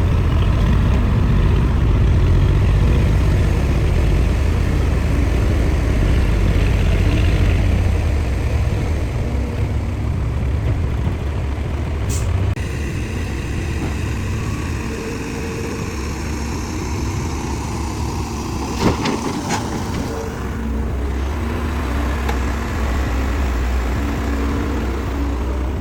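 Heavy diesel construction machinery and trucks running with a deep, steady engine rumble. Partway through the sound shifts to a different machine with a high whine over the engine, and two sharp metallic knocks come about three quarters of the way through.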